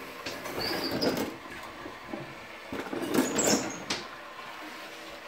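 Hand kneading and mixing flour and water into tortilla dough in a plastic mixing bowl: two stretches of rustling, scraping sound about a second long each, with a few short high squeaks.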